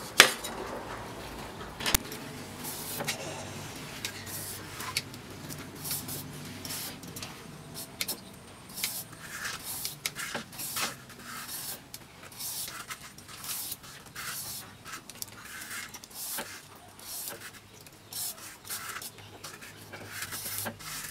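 A cleaver chops into a large green gourd on a bamboo table with a sharp knock at the start and another about two seconds in. After that a knife peels the gourd's rind in short scraping strokes, about one or two a second.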